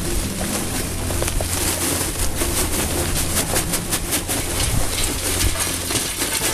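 Hardwood lump charcoal pouring out of its bag into the metal firebox of an offset smoker: a steady, dense clatter of many small knocks as the lumps tumble in.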